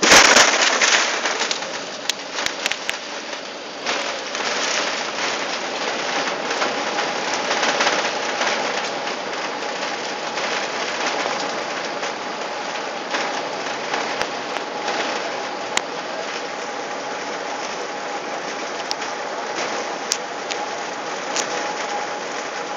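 Airbus A380 touching down very hard, heard from inside the cabin: a sudden loud jolt, a couple of seconds of rattling, then a steady loud roar of the engines and airframe as it rolls out along the runway, with a faint steady hum running through it.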